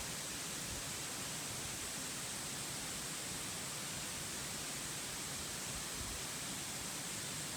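Steady, even hiss with no distinct calls or knocks, strongest in the high register.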